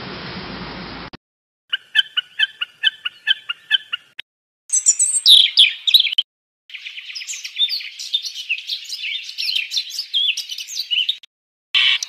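Songbirds singing in several short separate bits: first a steady hiss that cuts off about a second in, then a run of evenly repeated chirps at about four a second, a brief burst of very high notes, and a long, rapid warbling song.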